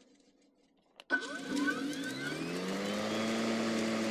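Worx Nitro WG761E cordless lawnmower starting: after about a second of near quiet, a click from the start lever, a short high beep, then the electric motor and blade spin up, rising in pitch for about two seconds and settling into a steady hum.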